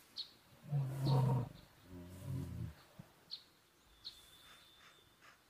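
Recorded brown bear growls from Google Search's 3D augmented-reality bear, played by the phone: a short growl about a second in, then a lower, longer one, followed by a few faint clicks.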